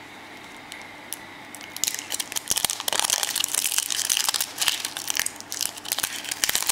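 Foil wrapper crinkling and crackling in dense irregular bursts as it is peeled off a chocolate surprise egg, starting about two seconds in.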